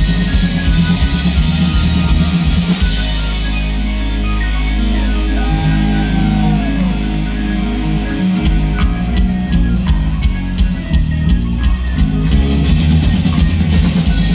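Live rock band playing loud: electric guitars, bass, keyboards and drum kit. A few seconds in, a deep note holds for about five seconds, then a quick steady beat picks up.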